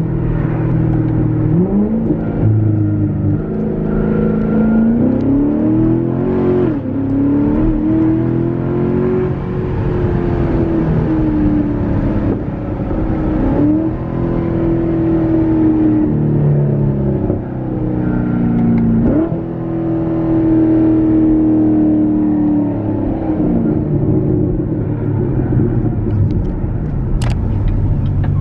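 C7 Corvette's 6.2-litre V8 running through an exhaust with its silencers removed, heard from inside the cabin while the car is driven in manual mode with the paddle shifters. The engine note climbs and drops several times as the gears change, then eases off as the car slows near the end.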